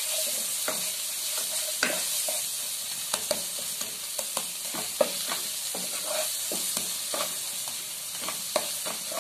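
Onion-tomato masala with ground spices sizzling steadily as it fries in oil in a nonstick pan, while a wooden spatula stirs and scrapes it with frequent short, irregular taps. This is the bhuna stage, the spices being fried down in the oil.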